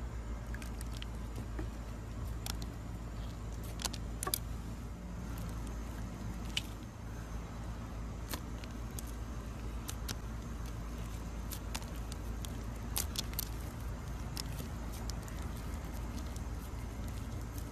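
Slime being squeezed and kneaded by hand, giving scattered sharp sticky clicks and crackles over a steady low background rumble.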